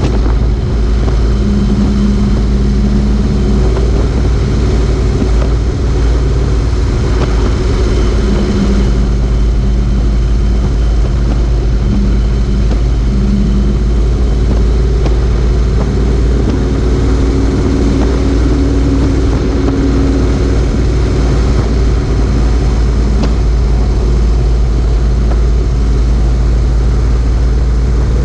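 Motorcycle engine running steadily at road speed, its pitch shifting a little up and down, under a heavy rush of wind and road noise on the camera microphone.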